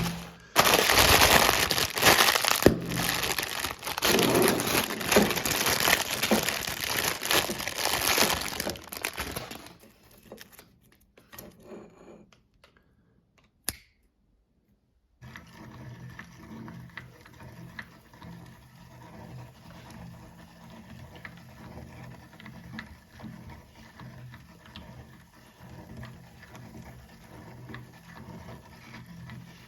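Loud crinkling and crackling for about ten seconds that fades out. After a short silence with a single click, a meat grinder runs steadily and quietly with a low hum and faint crackles.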